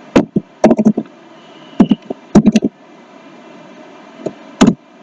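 Computer keyboard keys and mouse buttons clacking in short clusters of sharp clicks, with pauses between.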